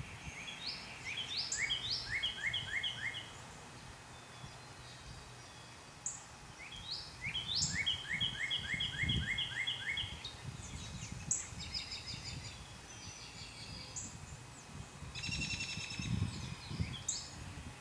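A songbird singing four songs, each a few quick rising notes followed by a fast run of repeated notes or a trill, over a low rumbling background noise.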